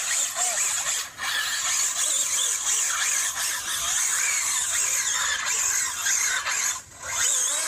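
High-speed electric RC car running flat out, a loud high-pitched whine and squeal from its brushless motor, drivetrain and tyres, the pitch wavering with speed. It drops out briefly about a second in and again near the end.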